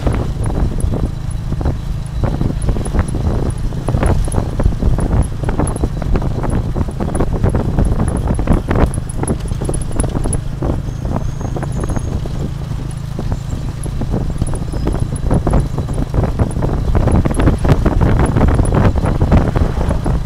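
Tuk-tuk under way on a rough dirt road: a steady low engine drone under constant irregular rattling and knocking as the carriage bumps along.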